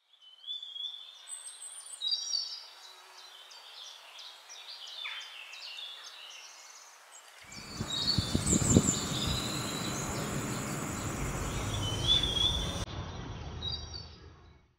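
Birds chirping and whistling in short, repeated high calls. About seven and a half seconds in, a steady rushing noise joins them, louder than the birds, and it fades out near the end.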